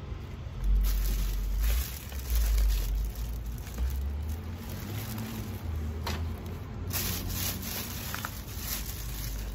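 Rustling and scraping of items being handled and packed into a box, over an uneven low rumble that is strongest in the first few seconds.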